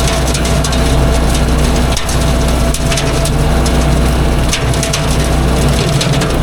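Engine running steadily under load while a mower chops through thick woody brush, with a stream of crackling and snapping as the stems are shredded.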